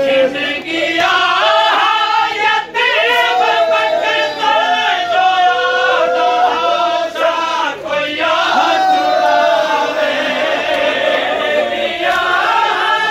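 Men's voices singing a noha, a Shia lament for Qasim ibn Hasan, loudly in chorus, with the flat slaps of matam, hands striking chests, beating among the voices.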